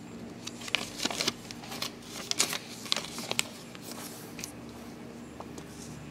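Sheets of paper rustling and crackling as they are handled on a desk, a quick run of sharp crinkles in the first half that then trails off, over a faint steady hum.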